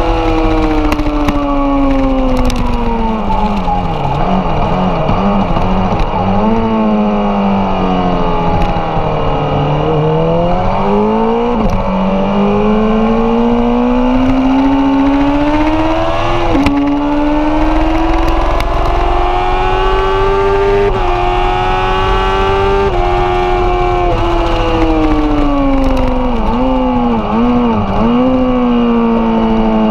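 Honda CBR1000RR Fireblade superbike's inline-four engine at racing speed. The revs fall in the first few seconds as the bike slows, then climb in several long pulls, each cut by a sudden drop at an upshift. Near the end they waver down again through quick downshifts.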